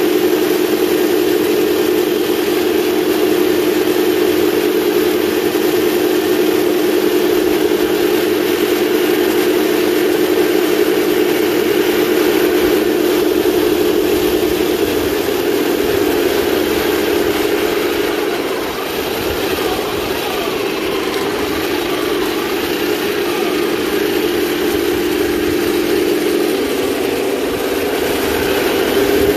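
1/16-scale radio-controlled tanks driving along a gravel road: a steady mechanical hum of their drive motors and engine-sound units over track noise, shifting in pitch about halfway through and dipping briefly a little later.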